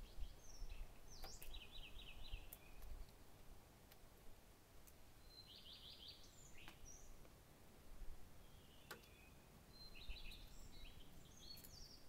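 A songbird singing several short phrases of fast, repeated trilled notes, a few seconds apart, over a low rumble.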